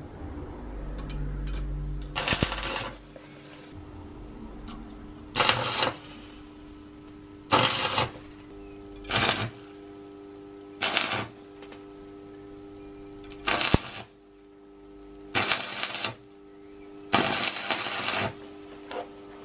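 Stick (arc) welder striking short arcs on a small steel part: about eight crackling, sizzling bursts, each under a second to about a second long, as tack welds are laid. A steady electrical hum runs between the bursts.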